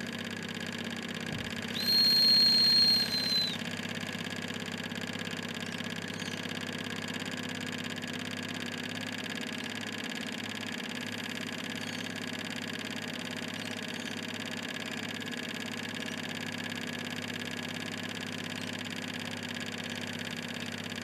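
Wilesco D18 model steam engine running steadily under steam, its oscillating cylinder and flywheel making an even, fast mechanical hum. About two seconds in, a high, steady whistle sounds for about a second and a half, louder than the engine.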